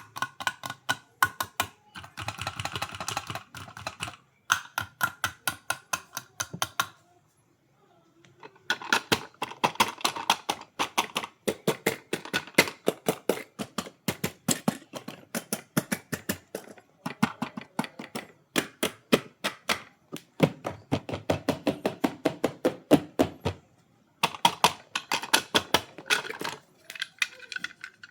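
Rapid, regular sharp clicks, about four a second, in runs of several seconds with short pauses between them.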